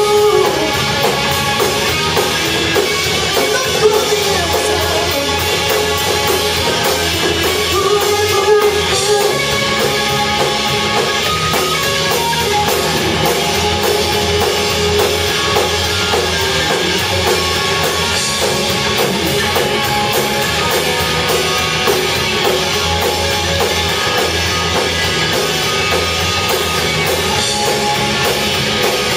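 A live rock band playing a heavy rock song, with electric guitars and a drum kit.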